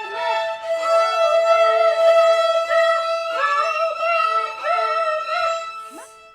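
Violin music: a slow melody of long held, sliding notes with a second, lower part coming in and out beneath it, fading away just before the end.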